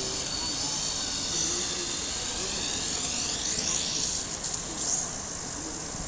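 WLToys V262 quadcopter's brushed motors and propellers whining in flight. The pitch sweeps up and down as the flight controller speeds up some motors and slows others to keep it level, with one overheated motor failing and losing thrust.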